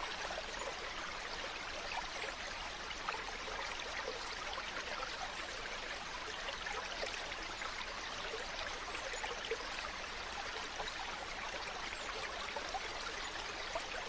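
Mountain stream flowing steadily, a continuous rush of water over rocks with small splashes and trickles all through.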